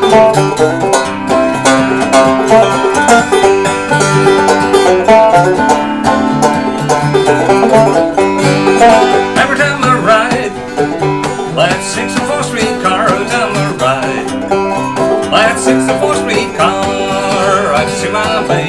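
Instrumental break of clawhammer banjo played over strummed acoustic guitar: the banjo picks a busy, driving old-time melody, and the guitar keeps a steady rhythm beneath it.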